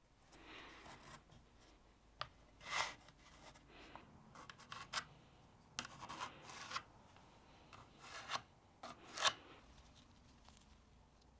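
Short, irregular rubbing and scraping strokes with a few light clicks: wooden handle pieces being slid and shuffled on a wooden board, and a pencil tracing the outline of the old cleaver handle onto a burl wood scale.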